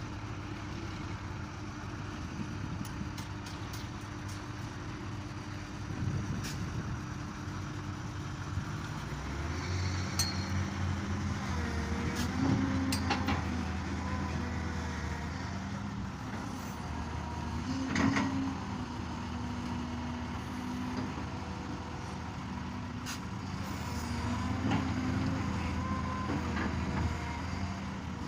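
Excavator's diesel engine working under load. The engine note rises and strengthens about a third of the way in and then holds, with occasional sharp clanks, the loudest about two-thirds of the way through.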